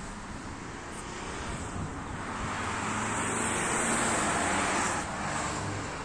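A car passing by: a rushing hiss that swells to a peak midway and fades over about three seconds, over a steady outdoor background.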